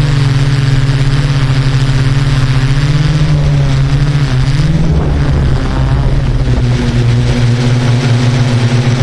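Yuneec Q500 4K quadcopter's motors and propellers humming loudly and steadily. The pitch wavers about halfway through as the drone changes speed, then settles slightly lower.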